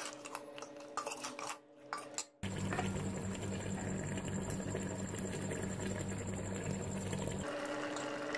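A metal ladle clinking and scraping against an aluminium cooking pot of boiled goat trotters. About two and a half seconds in, this gives way abruptly to a steady hiss with a low hum as oil is added to the pot, lasting about five seconds before stopping suddenly.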